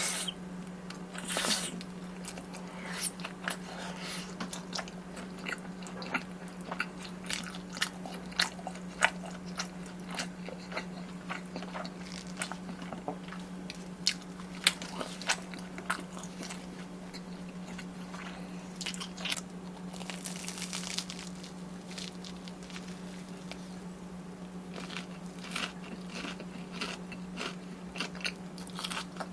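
Close-miked crunchy bites and chewing of crisp fried snack food, with a loud bite about a second and a half in and another around twenty seconds, and many small crackles of chewing between.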